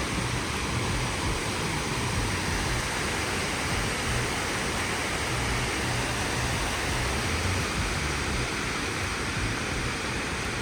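Steady rushing of water falling down the walls of the 9/11 Memorial reflecting pools into the basins.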